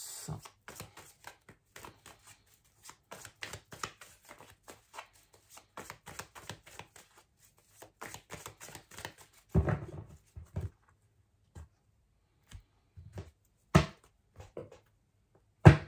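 A deck of oracle cards being shuffled by hand: a rapid, uneven patter of card clicks, followed by a few louder knocks in the second half.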